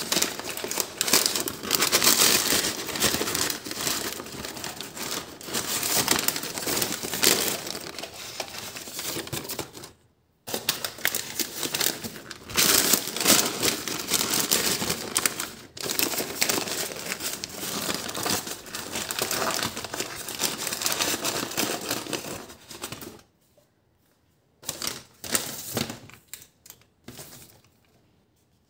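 Takeaway paper bag crinkling and rustling as fried chicken pieces are shaken out of it onto a plate. It breaks off briefly about a third of the way in and becomes only a few scattered rustles in the last few seconds.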